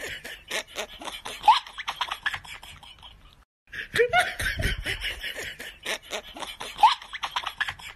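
People laughing, a burst of laughter that cuts out about three and a half seconds in; the same stretch of laughter then plays again.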